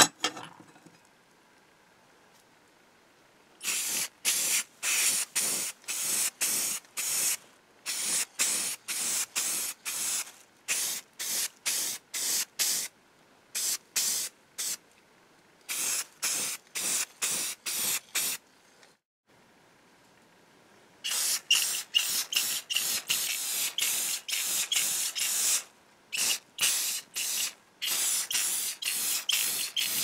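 A single clack near the start, then a spray paint can hissing in many short bursts, about two a second, as black paint goes onto the cast iron lock case; the bursts pause for a couple of seconds in the middle, then resume faster and closer together.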